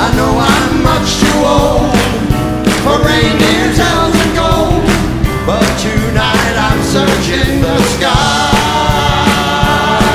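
Two men singing an upbeat rock-and-roll Christmas song into microphones, backed by a live band and orchestra with a steady drum beat.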